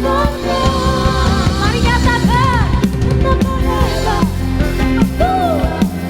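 Live worship band playing, with drum kit and bass under a melody line that slides and bends in pitch.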